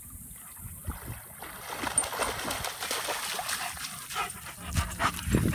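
German shepherd making vocal sounds close by, with water splashing and trickling in the shallows.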